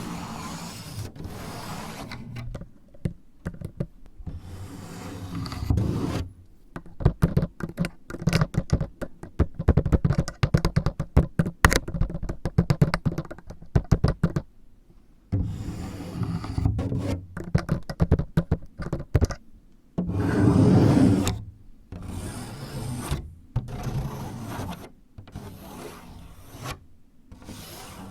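ASMR scratching and tapping with clip-fitted fingertips: rubbing and scraping strokes separated by short pauses, and in the middle a long run of fast, crisp taps. The longest and loudest rub comes near the end.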